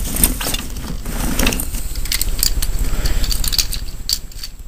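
Rustling and clattering of a shopping bag and toy packaging being handled, a noisy crinkle with scattered clicks and low handling thumps.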